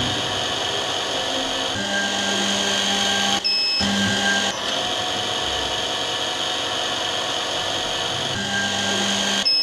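Small high-speed drill motor (24 W, 17,000 rpm) of a computerised eyeglass-lens drilling machine running steadily while drilling holes in a lens. It breaks off briefly about three and a half seconds in, with a short high beep.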